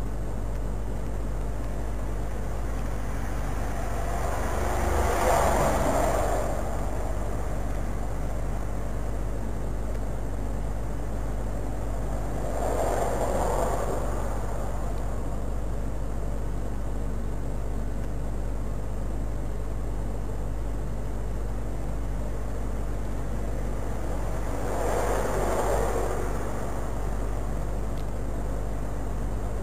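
Steady low hum and hiss, with three brief swells of rushing noise, each a couple of seconds long, about 5, 13 and 25 seconds in.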